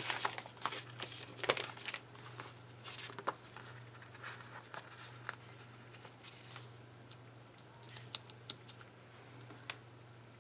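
Paper and sticker sheets being handled: rustling and crinkling with small taps, busiest in the first couple of seconds, then only sparse faint clicks.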